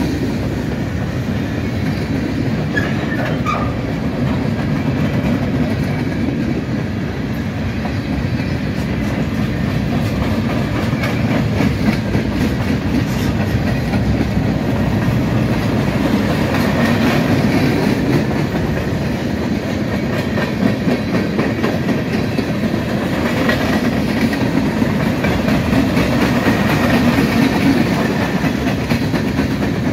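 Norfolk Southern freight train cars rolling steadily past, their wheels clicking over the rail joints in a continuous loud rumble, with a faint brief wheel squeak a few seconds in.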